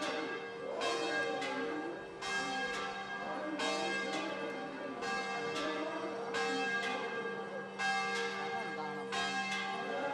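Large Hindu temple bell rung steadily, about one stroke every three-quarters of a second, each stroke ringing on into the next. A murmur of crowd voices runs underneath.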